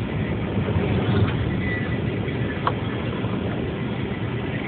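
Steady road and engine rumble heard from inside a moving car's cabin, with one short click a little past halfway.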